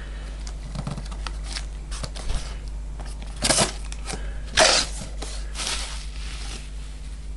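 Cardboard box flaps being pulled open and plastic packing crinkling as hands dig into the parcel, with many small rustles and two louder swishes about three and a half and four and a half seconds in.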